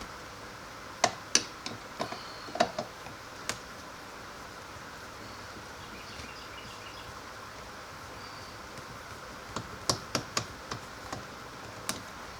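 Sharp clicks and taps of hand tools and hard plastic trim during work on a car's interior door panel, in two short clusters: one in the first few seconds and another near the end.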